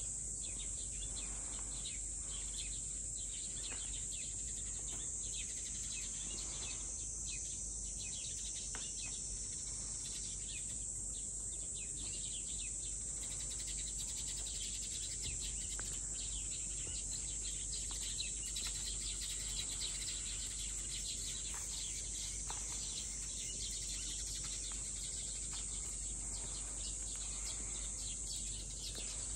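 Steady high-pitched drone of insects, with scattered short bird chirps over it.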